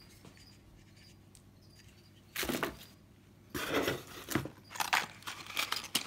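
Cardboard rustling and scraping as a hand reaches into a cardboard shipping box and slides out a small packaged item, beginning after about two seconds of quiet room tone with a short scuff and then a run of irregular rustles and light knocks.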